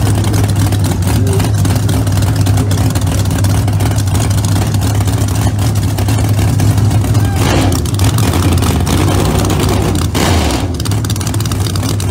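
Drag racing car's race engine idling with a loud, steady low rumble, swelling briefly about seven and ten seconds in.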